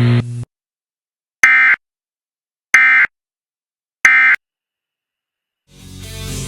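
Three short, identical bursts of Emergency Alert System digital data tones, the end-of-message code that closes an alert. Each burst is a high-pitched buzzing chirp about a third of a second long, and they come about 1.3 s apart. Music fades in near the end.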